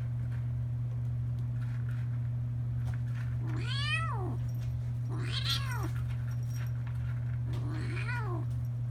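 Kitten meowing three times, each call rising and then falling in pitch, over a steady low hum.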